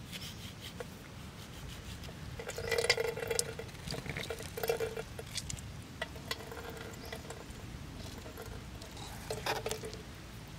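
Lemon being cut with a knife and squeezed by hand, its juice pattering and squishing into a wide aluminium pan in several short bursts, the loudest about three seconds in.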